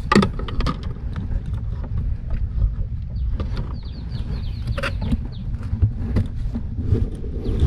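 Steady low rumble of wind buffeting the microphone, broken by scattered clicks and knocks of fishing gear being handled on a plastic kayak.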